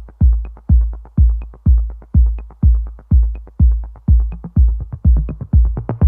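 Electronic dance music with a deep, booming kick drum on a steady beat about twice a second and light ticks between the kicks.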